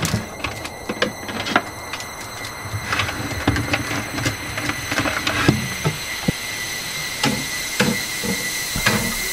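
Someone rummaging through office cabinets: repeated short knocks and clicks of cabinet doors and handled objects over a steady hiss, with a faint high steady tone in the second half.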